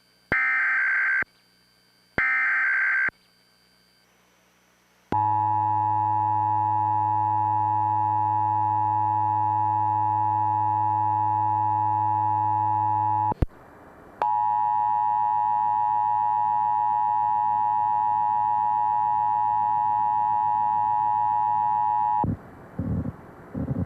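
Emergency Alert System signals. Two warbling data bursts of the SAME header, each about a second long, are followed by the EAS two-tone attention signal at 853 and 960 Hz. The attention signal holds steady for about eight seconds, breaks off for under a second, and resumes for about eight more. An announcer's voice comes in near the end.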